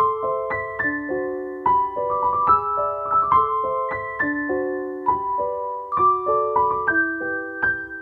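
Background keyboard music: a simple melody of piano-like notes, a few struck each second.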